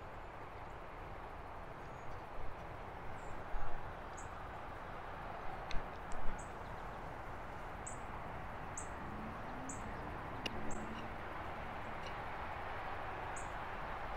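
Outdoor ambience: a steady low rush with a small bird repeating short, high chirps about once a second. A few brief clicks and knocks come in the first half and once more later.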